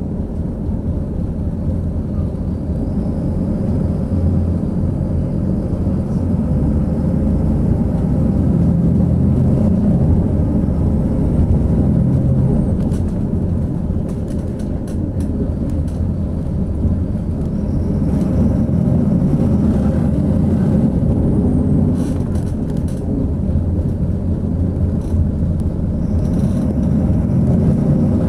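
Coach engine and road noise heard from inside the cabin while driving, a steady low rumble that grows louder over the first few seconds as the coach picks up speed, with a few faint clicks.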